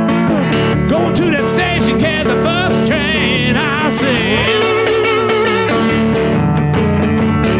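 A man singing a blues song to his own resonator guitar accompaniment, the guitar playing steadily under the voice. About three and four seconds in he holds notes with a wavering vibrato.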